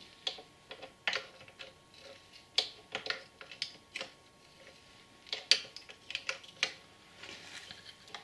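Socket ratchet clicking in short, irregular runs with sharp metal ticks as the oil drain plug is screwed back into the engine case.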